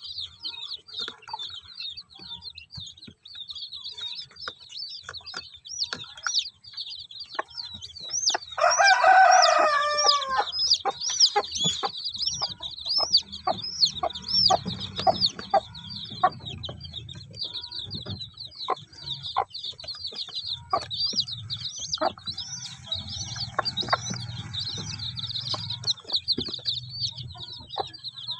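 Day-old native chicken chicks peeping continuously in a fast, high-pitched chorus. A rooster crows loudly once, about eight seconds in, for around two seconds.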